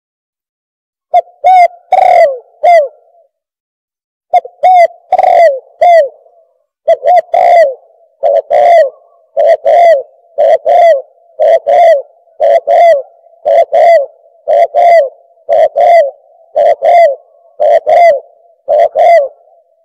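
Turtle dove (bato-bato) cooing, a recorded call played loud as a lure to draw doves in. Low cooing notes come first in two groups of about four, then as a steady run of paired notes about once a second.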